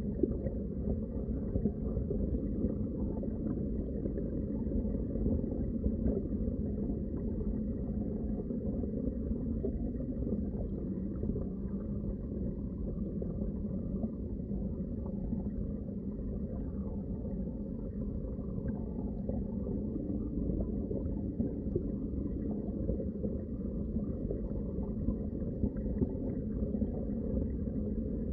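Underwater water ambience: a steady, muffled low rumble of moving water with faint scattered clicks.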